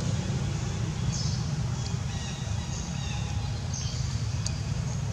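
A steady low rumble with faint, brief high bird chirps now and then.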